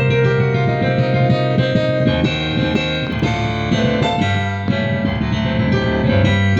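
Instrumental music on a keyboard instrument with a piano-like sound: a moving melody over a held bass note that changes twice.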